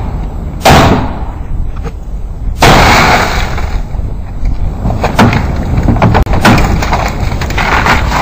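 A car's side window being smashed: a sharp strike less than a second in, then a longer crash of breaking glass about three seconds in. Light clinks and knocks follow as the car door is worked open.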